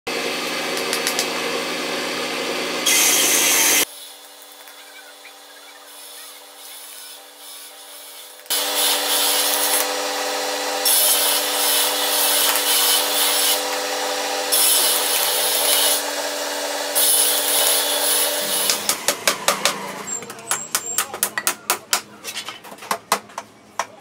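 Small hammer driving nails into thin wooden strips, with stretches of noisy hand-tool work on the wood. The last several seconds are a run of quick, evenly spaced hammer taps, about three a second.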